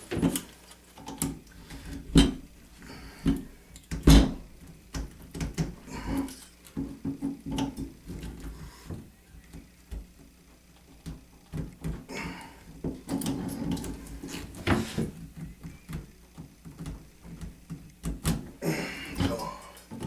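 Handling noise of a faucet valve stem being worked back into the faucet body: irregular clicks, taps and knocks of metal parts, with two louder knocks about two and four seconds in.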